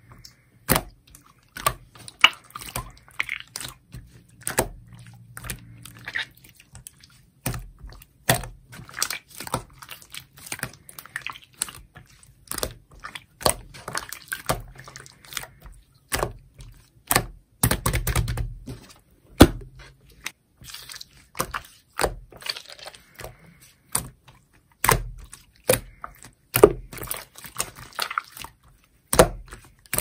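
Clear slime being stretched, folded and squished by hand, with a dense, irregular run of sharp wet clicks and pops.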